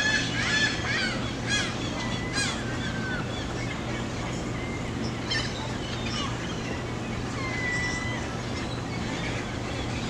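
A flock of gulls calling: a burst of overlapping cries in the first few seconds, then scattered calls and one long drawn-out note a little past the middle.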